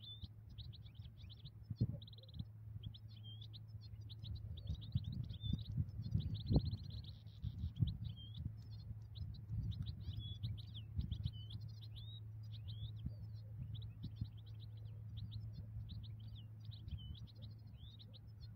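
European goldfinch singing: a long, unbroken run of fast twittering notes with short buzzy trills. A steady low hum and a few low thumps lie underneath.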